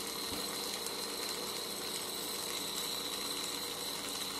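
Carlisle CC glassworking torch burning with a steady hiss while a borosilicate rod is heated in its flame, with a thin steady high whine underneath.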